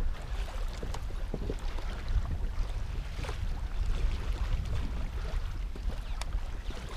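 Wind buffeting the microphone and water lapping against a kayak's hull, a steady low rumble with a few faint clicks.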